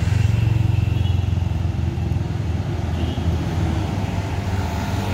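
A motor vehicle engine running with a low, steady hum, loudest in the first couple of seconds and then easing a little.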